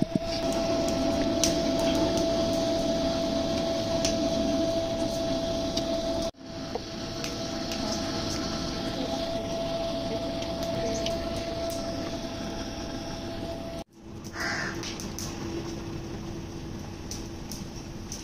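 Corn cobs set into a clay pot, heard as a few faint light knocks over a steady hum and hiss.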